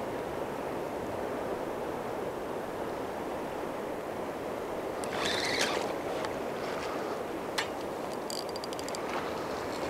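Steady rush of a fast tidal current. A fixed-spool spinning reel clicks in short runs, with a quick rattle of ticks near the end, as a hooked fish is played.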